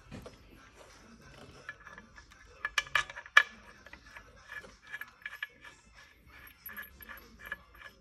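Mini One engine's timing chain clinking and rattling as it is lifted and handled by hand, with a cluster of sharp metallic clicks about three seconds in and lighter repeated ticks after.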